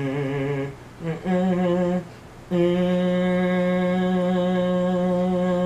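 A man humming three held notes: a short wavering one, a second about a second in, and a long steady note starting about two and a half seconds in.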